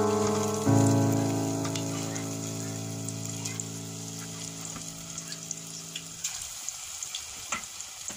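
Hot oil crackling and sizzling as chicken balls deep-fry in a stainless steel pot, with scattered sharp pops over a steady hiss. Background music holds a chord that fades and stops about six seconds in.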